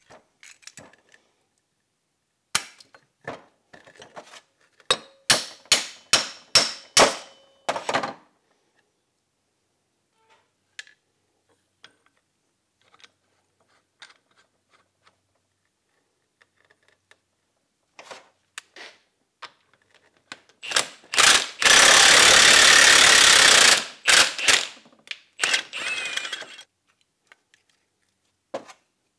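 A run of sharp metal knocks and clanks as a rusted axle-shaft U-joint is worked on the bench. About two-thirds of the way in, a cordless Milwaukee impact wrench hammers for about two seconds, driving a ball joint press to push the U-joint cap out of the yoke, followed by a few more knocks.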